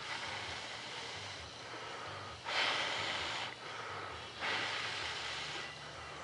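A person breathing close to the microphone: two loud exhales, each about a second long and about two seconds apart, over a faint steady hiss.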